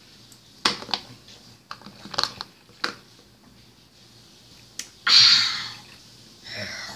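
Fluffy slime being handled, giving a few sharp clicks and pops, then a brief louder hissing squelch about five seconds in.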